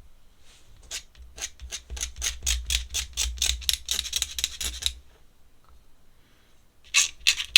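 Quick, repeated drawing strokes scratching across paper, about five a second. They stop for a couple of seconds and start again near the end.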